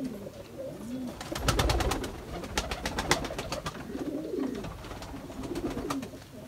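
Domestic pigeons cooing, a series of low rising-and-falling coos, with a run of rapid sharp clicks starting about a second and a half in and a few more near the end.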